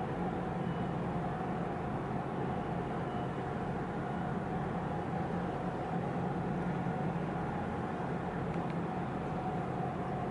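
Steady low mechanical drone with a constant mid-pitched hum over it: the engine and machinery noise of a loaded container ship passing slowly through the harbour channel.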